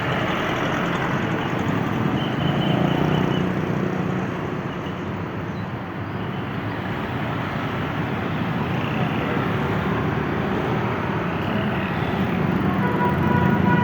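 Bus engine running amid road traffic noise, with voices. About a second before the end, short stepped tones at several pitches begin, the start of a melodic multi-tone horn.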